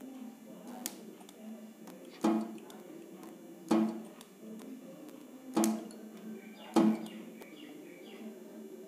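Handheld spot-welding pen of a 3KV transformer spot welder firing four times, each weld a sharp electrical snap with a brief low buzz, about one to two seconds apart, as it welds a metal strip onto a lithium battery cell. A low steady hum runs underneath.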